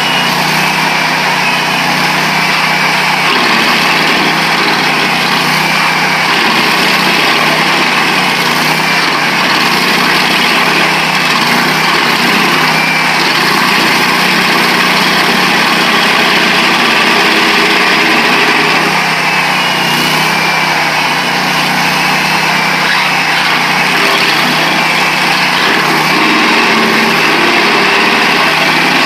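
Vermeer 222 stump grinder's Honda gas engine running hard and steadily as the cutter wheel, missing half its teeth, grinds a hard old pine stump; the engine note shifts a little as the wheel bites and recovers.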